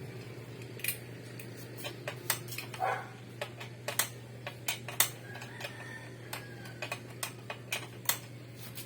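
Irregular light clinks and clicks of small hard objects being handled, about a dozen sharp taps, over a steady low hum.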